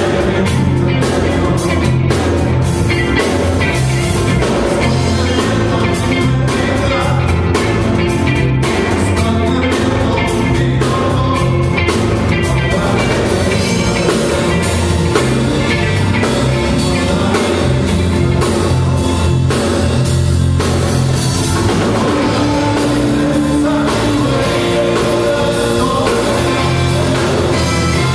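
Live band playing a loud, steady rock-style medley: distorted electric guitar, bass guitar, keyboard and drums.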